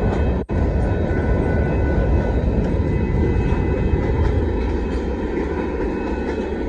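Freight train of grain cars rolling past, a loud steady rumble of wheels on rail. The sound cuts out briefly about half a second in, and the low rumble eases off after about four seconds.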